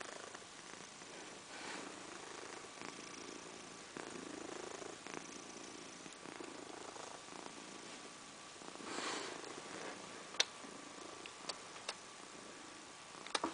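Domestic cat snoring softly in its sleep, a slow rhythm of breaths about every two seconds. Several sharp clicks come in the last few seconds, louder than the snoring.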